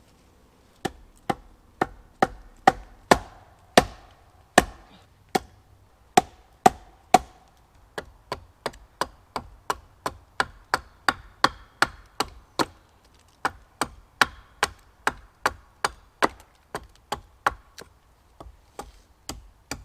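Axe chopping wood: a steady run of sharp strikes, about two a second, starting about a second in and loudest near the beginning.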